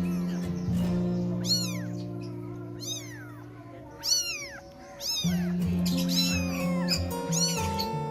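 Kitten meowing repeatedly in short, high-pitched, arching calls, about six of them, over background music with sustained notes.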